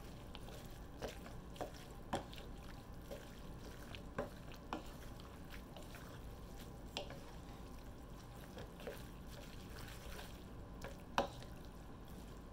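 Two wooden spoons stirring and tossing angel hair pasta, chicken and broccoli in sauce in a nonstick wok: soft, scattered knocks of wood against the pan, about ten in all, the sharpest one near the end, over a faint steady background.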